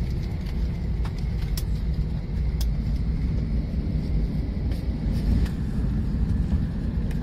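Steady low rumble of a parked airliner's cabin ventilation, with a faint steady whine above it and a few light clicks.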